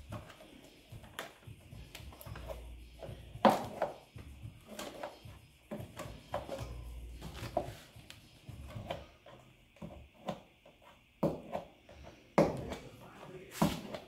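Plastic tire lever and hands working a mountain bike tire's bead onto the rim over a CushCore insert: irregular clicks, knocks and scraping of lever and rubber against the rim. The loudest knocks come about three and a half seconds in and twice near the end.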